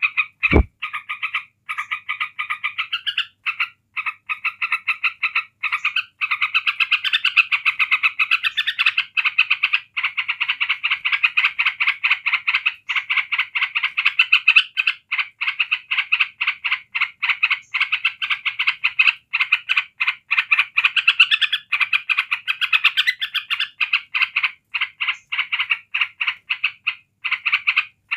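Sooty-headed bulbul giving a fast, rattling chatter of rapidly repeated notes, kept up almost without pause: the continuous 'ngebren' song style that bird keepers prize. It breaks off briefly a few times in the first several seconds, and there is a single dull knock about half a second in.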